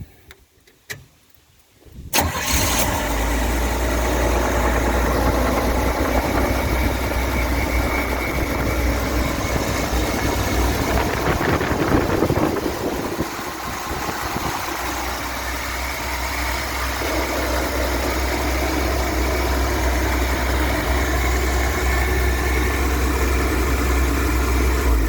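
A 1967 Chevrolet G10 van's engine cranks briefly and catches about two seconds in, then idles steadily on fresh oil just after an oil change.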